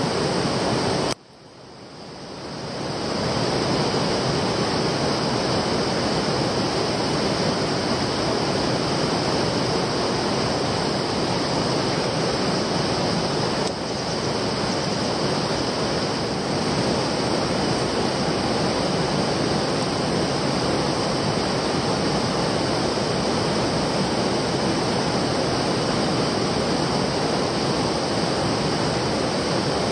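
Steady rush of a fast-flowing jungle stream, an even noise of running water. It cuts out abruptly about a second in and swells back over the next two seconds.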